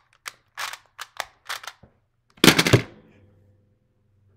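Rubik's Clock puzzle being worked by hand: quick clicks of its pins and dials. About two and a half seconds in, a loud clatter of hard knocks as the clock is put down on the table and the timer is stopped, followed by a faint ring.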